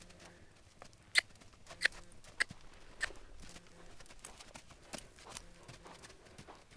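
Hoofbeats of a young horse trotting on sandy footing: a string of sharp, irregular clicks and thuds, the loudest about a second in.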